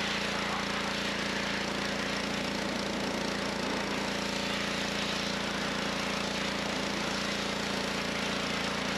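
Pressure washer running: a steady motor hum under the constant hiss of the water jet spraying over the engine bay.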